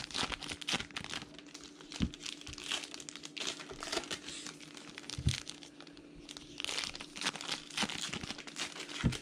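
Crinkling and rustling of baseball-card pack wrappers and box packaging being handled, with three soft knocks spread through it and a faint steady hum underneath.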